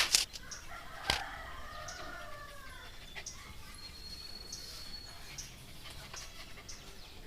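A couple of sharp knocks, then a drawn-out animal call about a second and a half long that bends down in pitch at its end; a thin high whistle sounds briefly a few seconds later.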